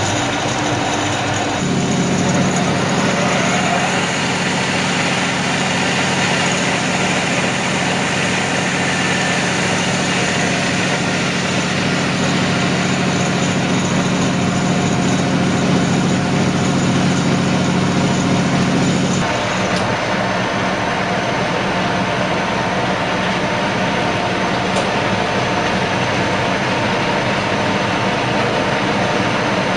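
Radial arm drilling machine running: a steady mechanical drone, with a deeper hum coming in about two seconds in and dropping out after about nineteen seconds.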